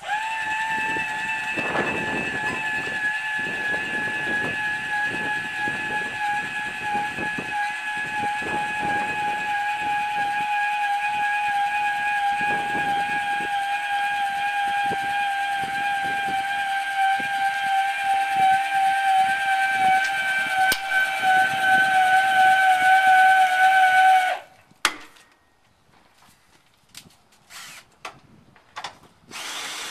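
Electric trailer tongue jack motor running with a steady whine that sinks slightly in pitch as it works, with light knocks underneath. It cuts off suddenly about 24 seconds in, followed by a few faint clicks.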